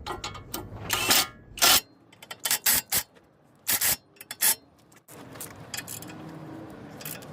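Ratchet wrench tightening brake caliper bracket bolts: several short bursts of metallic clicking as the handle is swung back and forth. The last two seconds or so are quieter.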